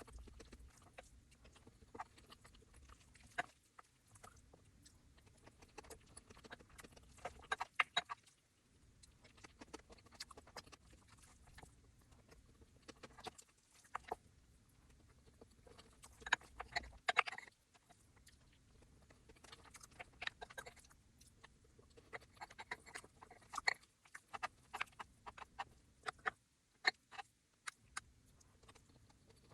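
Close-miked eating sounds: a person biting and chewing food in bursts of sharp, crisp crackles and clicks, with quieter stretches in between.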